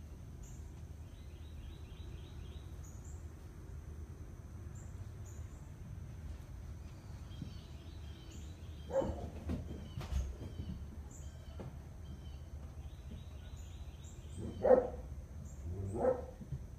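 A dog barking: a few barks about nine seconds in and two more near the end, over birds chirping.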